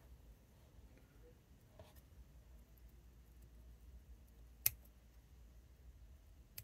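Bonsai scissors snipping small conifer shoots: one sharp snip about two-thirds of the way through and a fainter one at the very end, over a quiet background.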